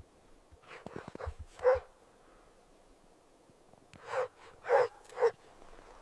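An animal giving short calls: one about a second and a half in, then three in quick succession about half a second apart near the end, with a few faint clicks before the first.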